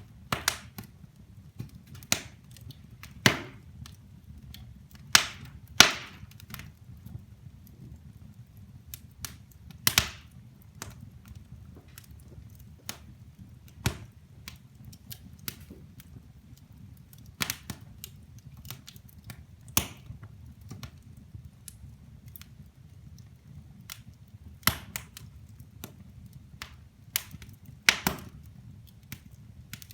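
Wood fire burning in a fireplace: irregular sharp crackles and pops from the burning logs, a dozen or so loud ones among many small ticks, over a low steady rumble of the flames.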